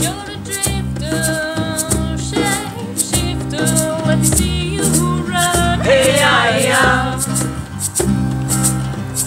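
Voices singing a song over strummed acoustic guitar and electric bass guitar, with a shaker ticking on the beat; several voices sing together about six seconds in.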